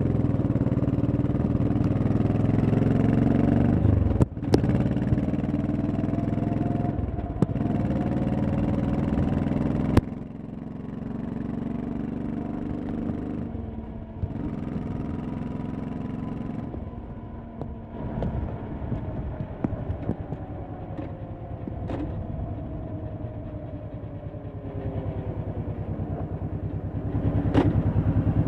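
Honda Shadow V-twin motorcycle engine pulling away and running hard for about ten seconds, with a few sharp clicks. It then drops to a quieter cruise with a slow falling whine.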